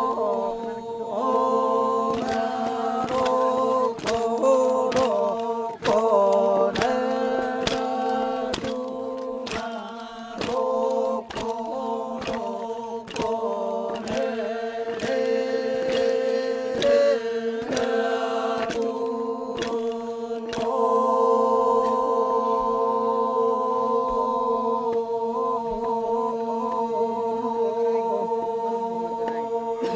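Men's group chant of the Toraja ma'nimbong, sung over a steady held drone with a melody moving above it. Sharp knocks keep a regular beat through the first two-thirds, after which the voices mostly hold long tones.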